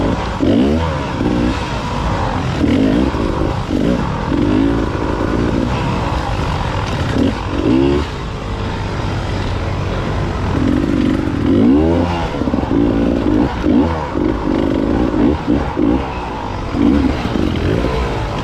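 Enduro motorcycle engines revving up and down again and again, the pitch rising and falling every second or two.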